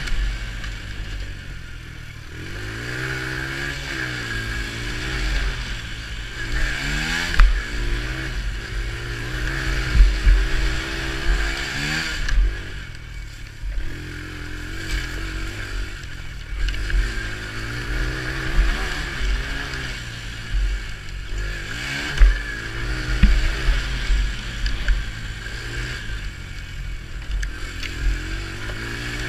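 Quad bike (ATV) engine heard from on board, revving up and falling back again and again as it is ridden round a woodland dirt track. Several sharp thumps stand out along the way.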